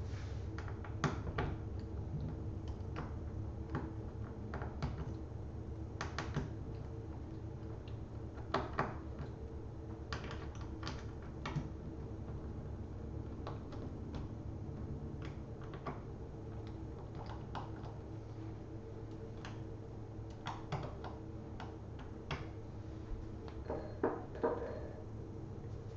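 Irregular small clicks and taps of a screwdriver and small screws being worked out of a laptop's screen frame, over a steady low hum.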